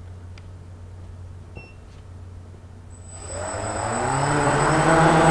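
Quadcopter's electric motors and propellers spinning up for takeoff about three seconds in: a whine that rises in pitch and grows louder, with a steady high tone above it. Before that, only a low steady hum and a couple of faint ticks.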